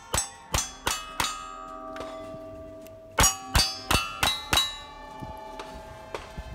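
Two quick strings of gunshots, each shot followed by steel plate targets clanging and ringing on.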